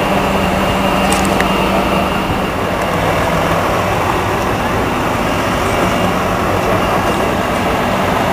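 Steady diesel engine drone from a multi-axle heavy-haul transporter moving slowly off with a steel rail bridge span loaded on it, with crowd chatter underneath.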